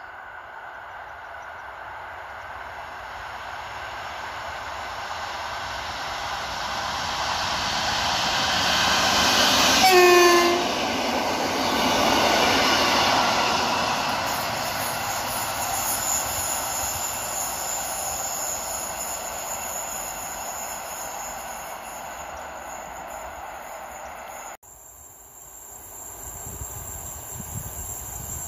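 Electric multiple-unit passenger train approaching and passing at speed, its wheel and air rush building to a peak about a third of the way in, where it gives one short horn blast, then fading as it runs away. Near the end the sound cuts suddenly and a fainter rumble of another train in the distance comes in.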